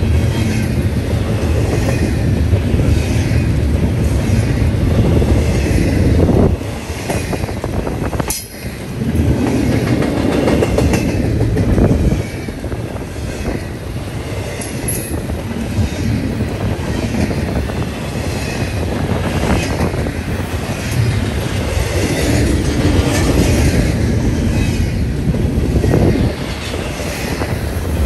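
Double-stack intermodal well cars rolling past at close range: a steady rumble of steel wheels on rail, with a regular clacking as the wheels pass over the rail joints, dipping briefly about eight seconds in.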